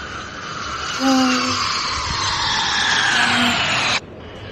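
Jet aircraft passing overhead: engine noise that grows louder while its pitch falls as it goes by, then cuts off abruptly near the end.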